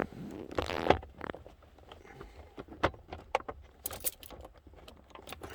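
Plastic steering column cover halves being handled and snapped back together: scattered clicks, knocks and rattles, with a short rustle of plastic about a second in.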